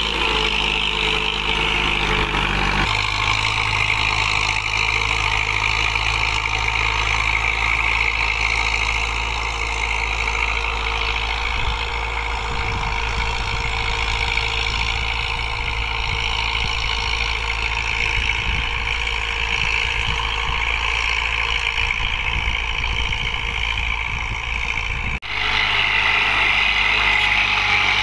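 Farm tractor's diesel engine running steadily under load as it pulls a tine plough through dry stubble. The sound changes abruptly about three seconds in and again near the end.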